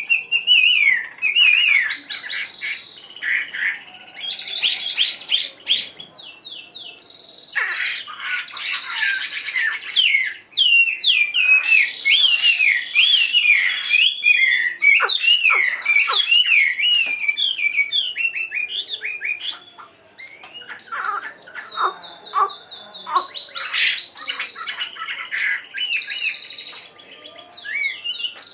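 Chinese hwamei (họa mi), a wild-caught bird one week caged, singing a long, varied song of rapid slurred whistles and quick repeated phrases. There are brief pauses about six seconds in and again about twenty seconds in.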